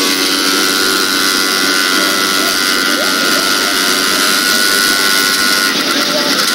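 Drag-strip race engine running at a steady pitch, which stops shortly before the end.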